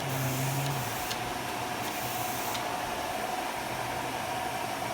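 Machine running steadily with a constant whine over a hiss, with a few short bursts of high hissing in the first couple of seconds.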